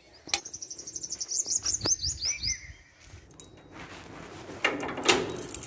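A small bird sings a fast trill of short, high, falling notes for about two and a half seconds. Near the end comes a louder metallic rattle and scrape as a padlock on a wooden door is handled.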